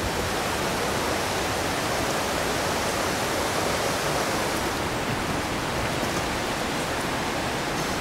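Rushing water of a mountain torrent: a steady, dense rush of white water, cutting in suddenly at the start.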